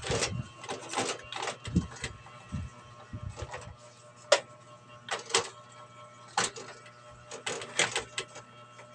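Irregular clicks and knocks of a hard drive and its fittings being handled and seated in a PC case's drive bay, over a faint steady hum.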